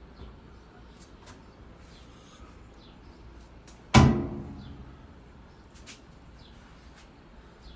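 A door or lid slams shut once, loud and sudden, about halfway through, ringing briefly as it dies away. A few faint clicks come before and after it.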